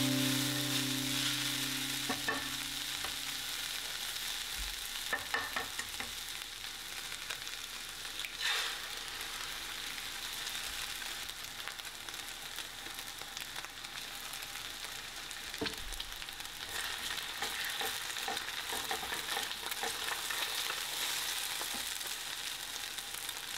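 Ground chicken and an egg frying with a steady sizzle in a nonstick pan, stirred with a silicone spatula that scrapes and knocks against the pan now and then.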